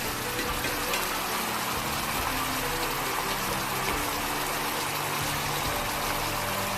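Pot of pork belly braising in coconut water, simmering with a steady bubbling hiss as the sauce reduces.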